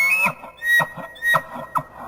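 Creature call sound effect layered from deer and elk calls: a high whistling, bugle-like tone ends about a quarter second in, then three short, sharp calls follow.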